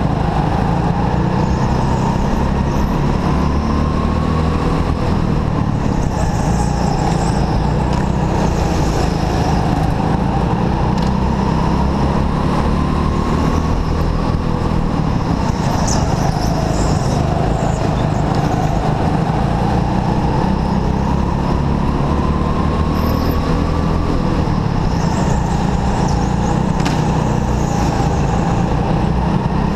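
Indoor racing go-kart's motor running hard, heard from on board over a heavy rumble. Its pitch climbs slowly along each straight and drops back going into the corners, several times over.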